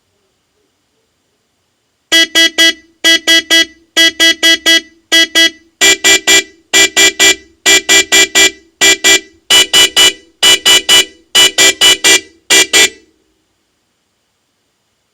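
Homemade electronic ringtone played through a Harman Kardon Aura Studio 2 speaker: loud, pitched, buzzy beeps in quick groups of three, repeating about once a second. It starts about two seconds in and stops shortly before the end.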